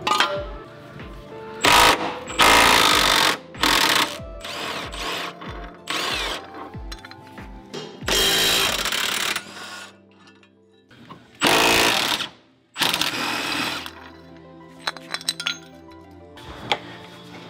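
Cordless impact wrench hammering in repeated bursts of a second or so, about seven in all, undoing bolts on a car's rear suspension and subframe. Background music with a steady beat plays throughout.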